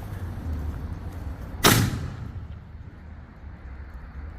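A single loud bang from a 7-inch canister firework shell about two seconds in, dying away over about half a second, with a low rumble underneath.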